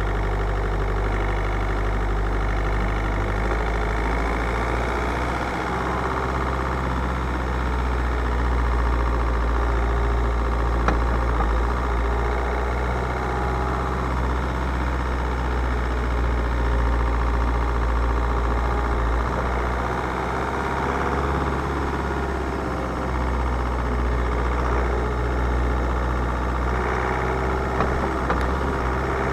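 Car engine running steadily with a low hum, with one short knock about eleven seconds in.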